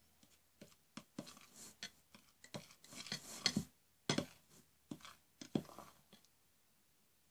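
A knife stirring a thick mixture of glue and baking soda in a bowl: irregular scrapes and clicks, stopping about six and a half seconds in.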